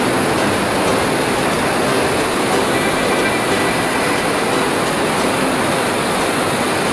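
Waterfall pouring down a rock face: a loud, steady rush of falling water.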